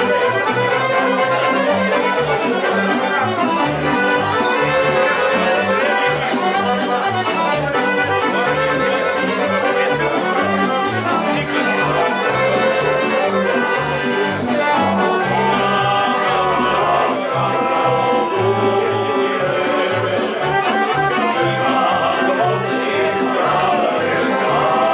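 Small live folk band playing: a piano accordion leads the tune, with violin and strummed acoustic guitars and a steady, bouncing bass line underneath.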